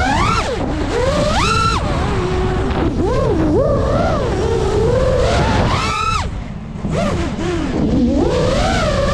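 5-inch FPV quadcopter's brushless motors whining, the pitch swooping up and down with the throttle over a rush of wind noise. There are sharp climbs to a high whine about a second and a half in and again near six seconds, then a brief drop as the throttle is chopped, before the whine picks up again.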